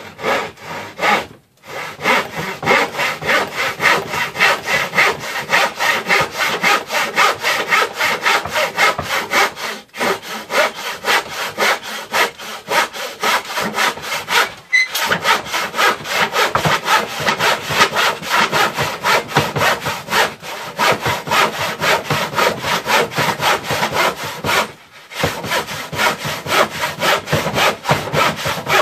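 Handsaw cutting through a cedar board of an old patio table, in quick, steady back-and-forth strokes with a few brief pauses.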